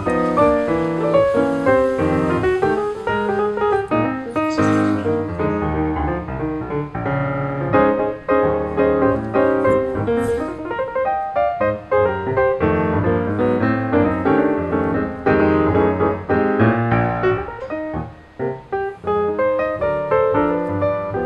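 Background piano music: a steady flow of quick notes.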